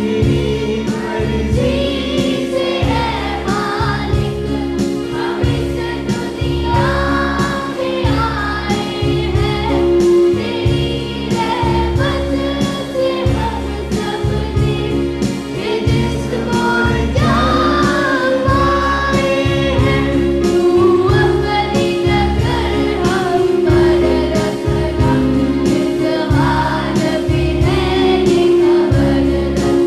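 A group of voices singing a Hindi prayer together over instrumental accompaniment, with held tones and a steady beat.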